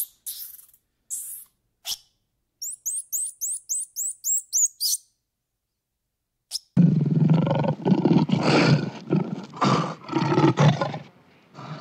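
High bird chirps, ending in a quick run of about ten chirps. After a short silence, a loud, low animal call comes in about seven seconds in and keeps going in pulses.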